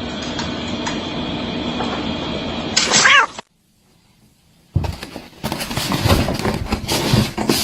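A cat meows once, a short call with a wavering, falling pitch about three seconds in, over steady background noise. The sound then cuts to silence, and after about a second a different stretch of irregular knocks and clatter begins.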